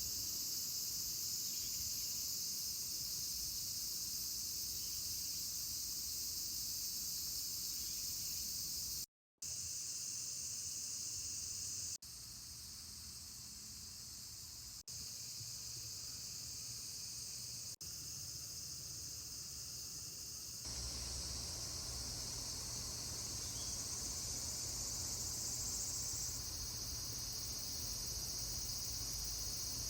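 Dense, steady, high-pitched chorus of insects chirring outdoors in summer. It drops out briefly about nine seconds in and changes level abruptly several times.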